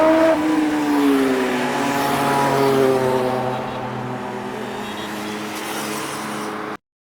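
A sport motorcycle engine passing by. Its note drops in pitch as it goes past and away, then holds lower and fainter, and the sound cuts off abruptly near the end.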